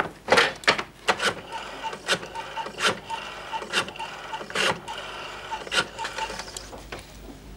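Rotary telephone being dialled: several digits in a row, each a sharp click followed by a string of light ticks as the dial runs back.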